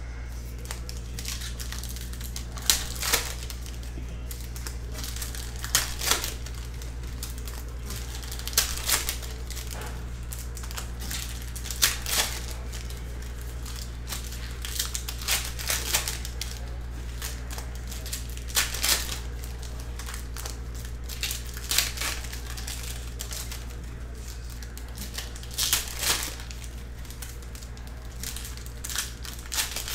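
Foil trading-card pack wrappers crinkling and tearing as packs are opened by hand, in short bursts about every three seconds, over a steady low hum.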